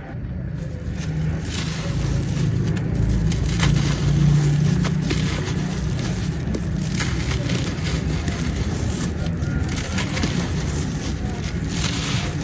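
Crumbly material being crushed and broken up by hand, with dry crackling and scattered sharp snaps over a steady low rumble.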